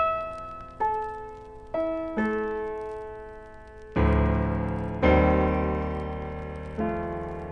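Slow, gentle solo piano music. A few single notes are struck and left to ring and fade, then fuller low chords about four and five seconds in, and another note near the end.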